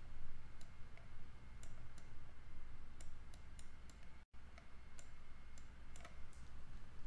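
Faint, irregular light clicks and taps of a stylus on a pen tablet while writing on the slide, over a low steady hum. The sound drops out completely for an instant about four seconds in.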